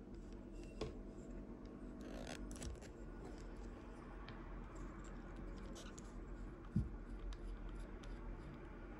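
Spinning reel being handled by hand: small clicks and scrapes of its body and parts under the fingers, with one louder knock about two-thirds of the way through.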